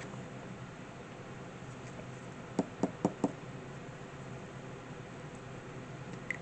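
Four quick light knocks in a row, about two and a half seconds in, over faint room tone, with a short high blip near the end.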